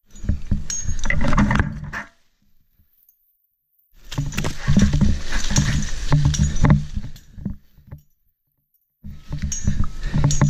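Rope ascent on a Hitch Hiker rope wrench and chest roller: bursts of close rope and climbing-gear handling noise, rubbing and clattering, one burst for each pulling stroke. There are three strokes of a few seconds each, with short quiet gaps between them.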